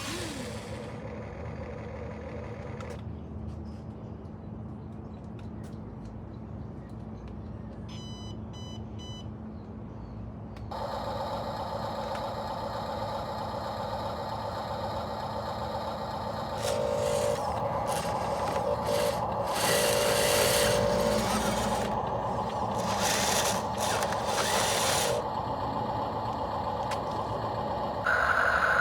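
Remote-control toy construction vehicles running on their small electric motors, with a quick run of about four beeps about eight seconds in. From about eleven seconds the motor whirring grows louder and steadier, rising again in steps later on.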